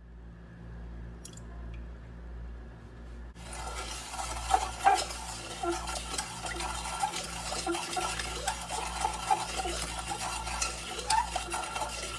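A wooden spoon stirring sugar and water in a stainless steel pot. It starts about three seconds in, as a continuous irregular scraping with small knocks against the pot's bottom and sides.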